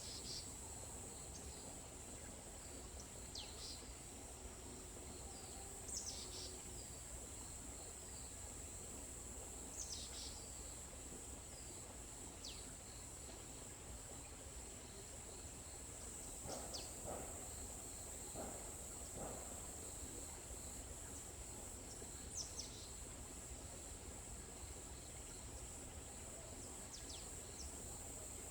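Forest ambience: insects keep up a steady high drone while a bird gives short, downward-sweeping calls every few seconds.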